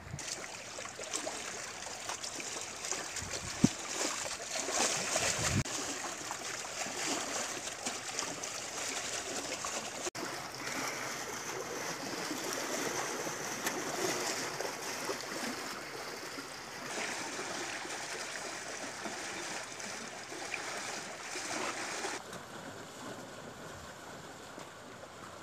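Choppy reservoir water splashing and lapping close by, a steady wash that eases slightly near the end.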